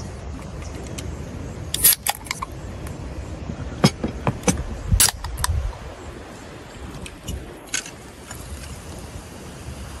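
Scattered clicks and clinks of drink cans, plastic cups and cutlery on a table, with a soda can being opened about two seconds in.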